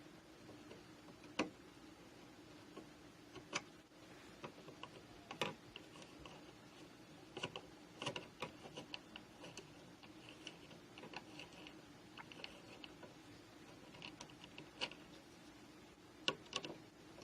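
Scattered sharp clicks and light ticking of a screwdriver backing out the mounting screws of a wall light switch, with a few louder clicks near the start and end, over a faint steady hum.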